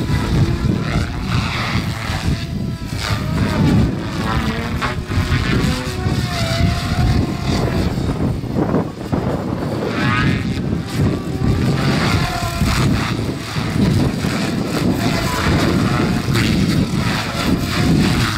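Goblin RC helicopter flying 3D aerobatics: its rotor and drive whine glides up and down in pitch as it swoops and flips, with the rotor blades whooshing throughout.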